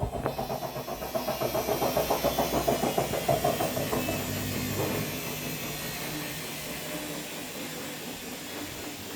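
Haier washing machine running, a rhythmic pulsing of about four beats a second from the turning drum and motor that fades away over the first half, leaving a quiet steady hum.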